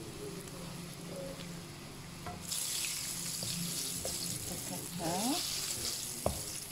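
Batter-coated bitter gourd slices deep-frying in hot oil in a wok, the sizzle growing much louder about two and a half seconds in. A spatula stirs them, with a brief rising squeak about five seconds in and a single sharp knock against the wok near the end.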